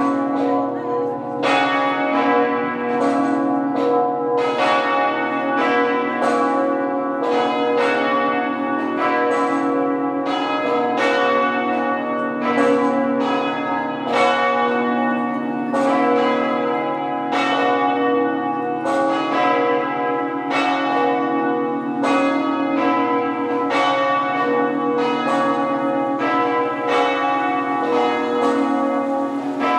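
Cathedral bells of Notre-Dame de Québec ringing together half-muffled, the call to Sunday mass. Strokes come about one to two a second and overlap over a continuous lingering hum; half-muffled ringing is a sign of mourning.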